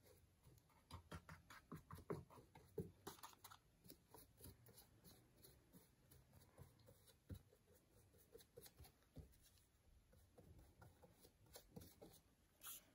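Faint, irregular brush strokes and light ticks of a flat paintbrush laying gloss varnish over painted stones.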